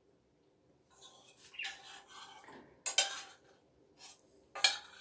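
Metal spoon scraping and clinking against a frying pan as fried mince is emptied into a bowl, starting about a second in, with two sharp clinks about three and four and a half seconds in.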